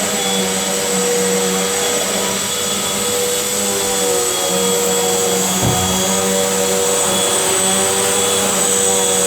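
Vacuum cleaner running steadily, a constant motor hum under the hiss of rushing air, with one brief low bump a little over halfway through.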